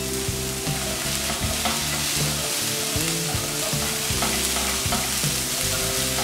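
Diced onion, walnuts and mushrooms frying in oil in a frying pan, with a steady sizzle, stirred with a spatula in the second half.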